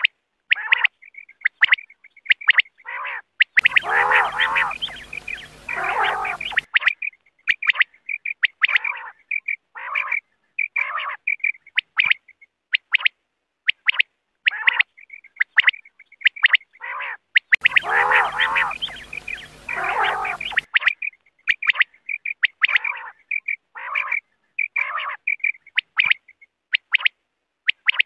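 Quail (batair) calling: quick series of short, high, sharp call notes, broken twice by longer, noisier stretches of lower, falling calls. The sequence repeats as a loop, as a recorded call played to draw quail.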